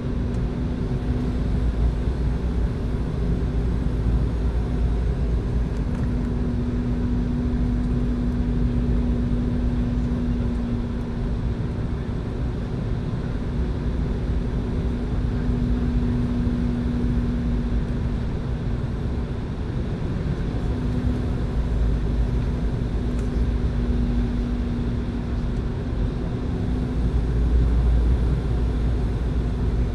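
Cabin noise of a jet airliner on final approach: a steady rush of airflow and engine drone with a low hum, swelling slightly near the end.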